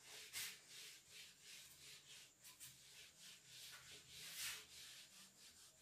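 Handheld whiteboard eraser wiping marker off a whiteboard: faint swishing strokes, about two a second, the loudest one about four and a half seconds in.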